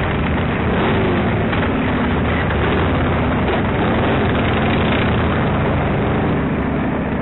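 Steady rush of wind and road noise on a motorcyclist's helmet camera at highway speed, with motorcycle engines running underneath.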